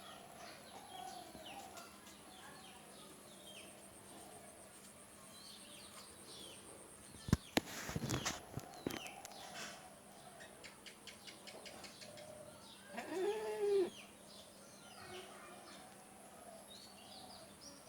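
Farmyard ambience: small birds chirping and fowl clucking throughout. There is a sharp knock and clatter about seven seconds in, and one louder, drawn-out animal call near the thirteen-second mark.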